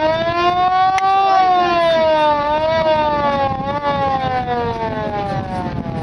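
A siren-like wail: one long pitched tone that rises over about the first second, wavers, then slowly sinks in pitch and fades near the end.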